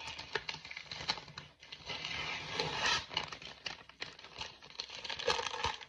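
Brown paper shipping mailer being torn open and handled: irregular crinkling, tearing and rustling of paper with small crackles.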